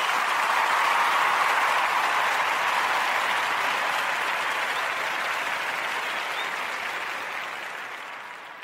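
Applause from a crowd of people clapping, holding steady and then fading out gradually over the last few seconds.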